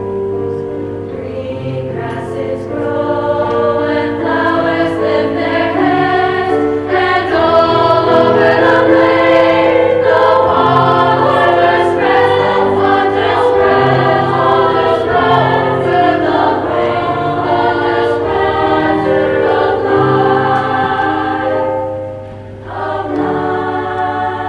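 Women's choir singing in parts with piano accompaniment, sustained sung phrases that swell louder a few seconds in, with a short drop in level near the end before the next phrase starts.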